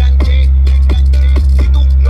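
Hip hop music with rapped vocals and a steady, very heavy deep bass, played loud through a car audio sound system whose open trunk is filled with a wall of speakers.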